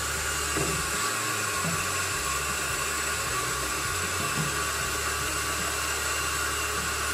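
Tap water running steadily from a sink faucet into a plastic jar, filling it.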